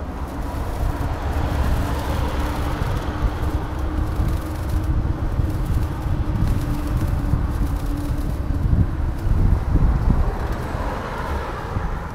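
City street traffic heard from a moving bicycle, with wind rumbling on the microphone. A steady hum holds through the first two-thirds, then drops out.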